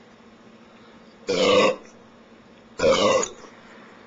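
A man belching twice in a row, each belch about half a second long and about a second and a half apart, brought up by gulped carbonated Coca-Cola.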